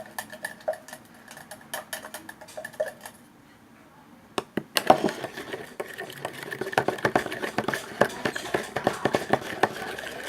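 Wet slime being squeezed and worked by hand, making rapid small clicks and squelches. It pauses briefly about three seconds in, then comes back busier about five seconds in.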